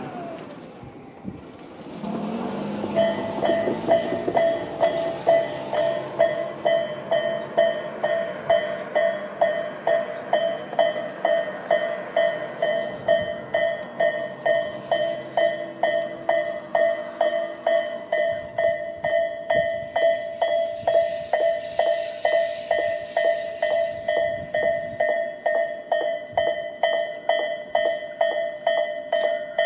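Japanese level-crossing warning bell, Tobu Railway's "type A" electronic bell sound, starting about three seconds in and ringing steadily at about two strokes a second. A rush of noise is heard at the start and again partway through.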